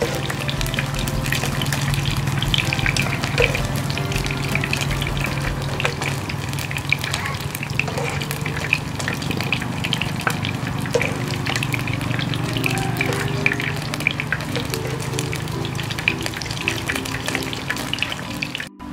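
Hot cooking oil sizzling and crackling steadily, a dense run of fine pops from fried frog pieces. Soft background music plays underneath, its melody clearer in the last third.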